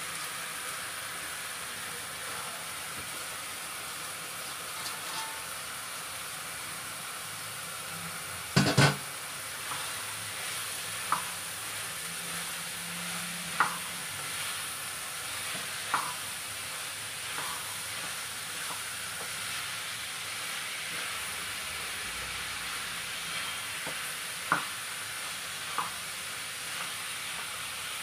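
Chopped vegetables sizzling in hot spiced oil in a non-stick pan as they are stir-fried, with the spatula knocking sharply against the pan now and then; the loudest knock comes about nine seconds in.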